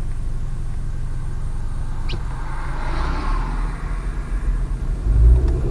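Car engine and road noise heard from inside the cabin as the car drives off: a steady low rumble, with a rushing hiss that swells and fades about three seconds in and the rumble growing louder near the end.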